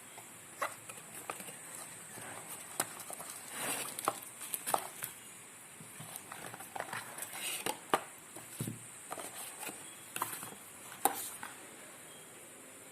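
Hands handling a smartphone and its packaging: scattered light clicks, taps and rustles, a few sharper than the rest, over a steady faint hiss.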